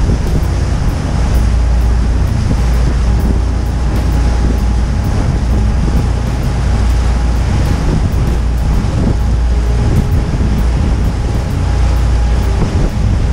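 Tour boat's engine running steadily with a deep low rumble, mixed with wind buffeting the microphone and the wash of waves against the hull.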